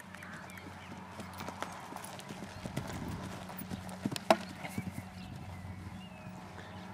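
Pony's hooves thudding on an arena's sand surface at a canter, growing louder and closer as it approaches and takes a jump. A single sharp knock about four seconds in, as the pony goes over the fence, stands out above the hoofbeats.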